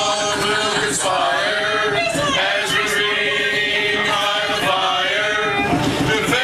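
A group of people singing a Christmas carol together, men's voices among them, with long held notes.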